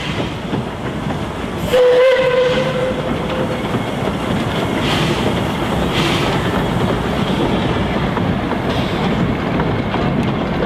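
Narrow-gauge NA class 2-6-2 tank steam locomotive gives one short whistle blast about two seconds in. It then passes close, with its carriages' wheels clattering steadily over the rail joints of the trestle bridge.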